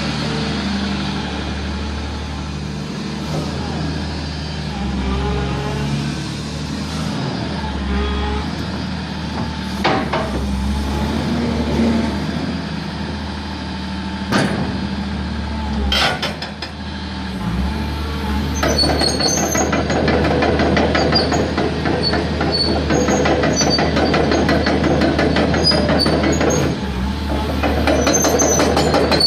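Diesel engine of a Hyundai R380LC crawler excavator running steadily, with a few sharp metallic knocks. About two-thirds of the way through it grows louder and takes on a fast rattling clatter.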